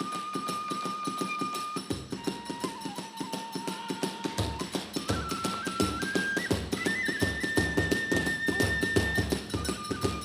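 Kagura hayashi music: a bamboo flute holding long notes that step up and down, over fast, dense drumming and clashing small hand cymbals, with a deep drum beating in about two seconds in and more strongly from about four seconds.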